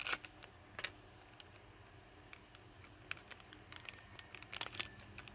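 Faint, scattered crackling and clicking of an anti-static shielding bag being handled and pulled open, with a small burst of crackles near the end.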